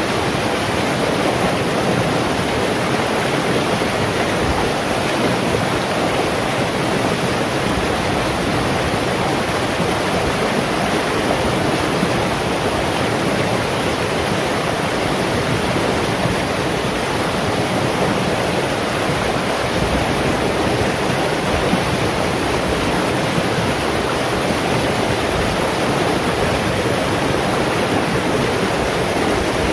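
Shallow rocky stream rushing over boulders and small rapids: a steady, unbroken rush of water.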